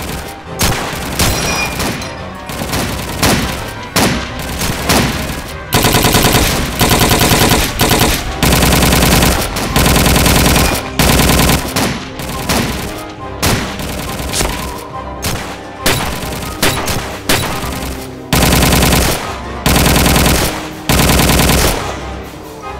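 World War II battle sound effects of gunfire: scattered single rifle shots, then from about six seconds in several bursts of rapid machine-gun fire, each about a second long, with single shots in between.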